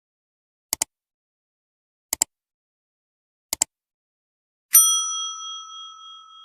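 Three mouse clicks, each a quick double tick, about a second and a half apart, followed by a bright bell ding that rings on and fades over about two seconds: the like-subscribe-bell sound effect.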